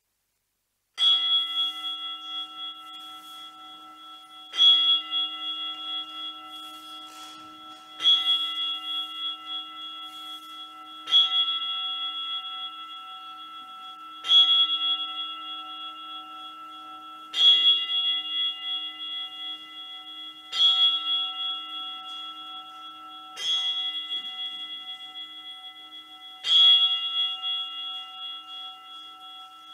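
A single bell tolling slowly, one strike about every three seconds, about nine strikes in all. Each strike rings out and is still fading when the next one comes.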